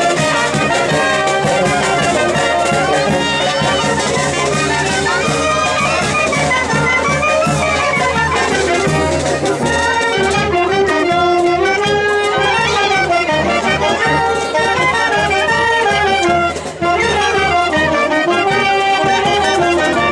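A brass band playing dance music, a continuous tune whose melody moves up and down.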